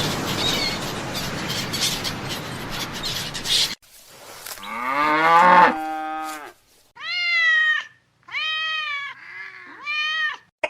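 A dense stretch of noisy crackling for the first few seconds, then a long lowing call that drops in pitch and levels off, then three short meows from a cat, each rising and falling.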